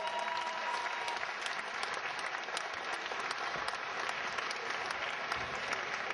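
Crowd applauding steadily: a dense, even patter of many hands clapping. A thin, steady high tone sounds over it at the start and stops about a second in.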